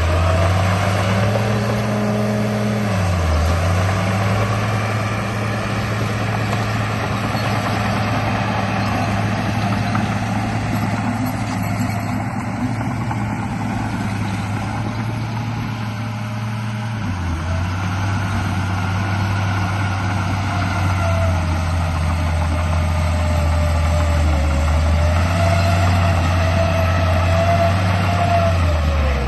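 Radio-controlled bulldozer running: a steady low engine-like drone that drops in pitch a few seconds in and again past the middle, then steps back up near the end, with a fainter whine rising and falling above it.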